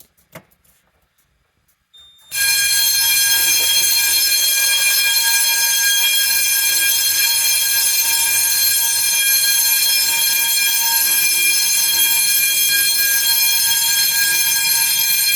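A few faint clicks as a pull station is pulled. About two seconds in, an Edwards 6100D Durabell 6-inch vibrating fire alarm bell starts ringing, loud and continuous with no pauses, because the fire alarm panel is set to continuous signalling.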